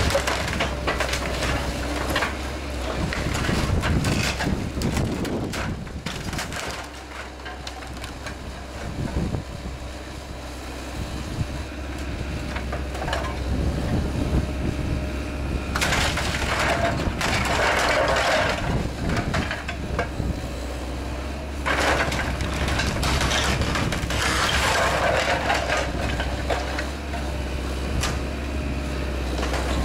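Excavator demolishing a timber-framed house: its diesel engine running steadily under repeated cracks, crunches and knocks of timber and debris being crushed, with two longer bouts of loud crashing in the second half.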